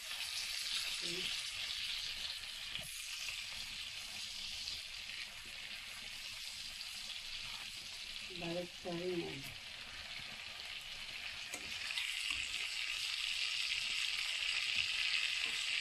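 Chicken thighs sizzling as they fry in butter and garlic in a pan, a steady hiss that grows louder near the end, while the pieces are turned and stirred.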